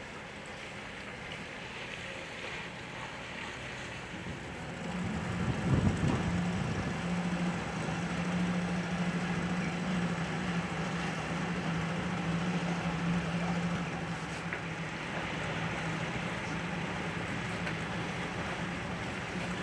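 Motorboat engine running as a boat passes, with a steady low hum that comes in about five seconds in along with a louder rush, then eases off somewhat later on; wind and water noise underneath.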